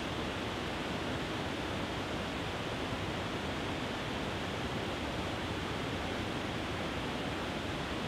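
A small waterfall spilling over a low rock ledge into a river pool, making a steady, even rush of water.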